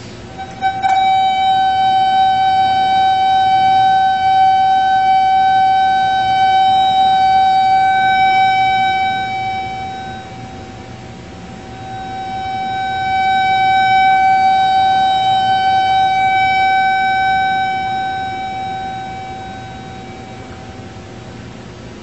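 Steady electronic tone from the microwave receiver's loudspeaker, which plays the received microwave signal as sound. It starts with a click about a second in, then fades to a low point midway, swells again and fades near the end: the received signal rising and falling as the receiver passes through the bright and dark fringes of the two-horn interference pattern.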